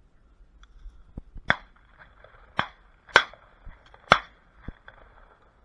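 Shotgun shots: four sharp reports within about three seconds, with a few fainter knocks around them.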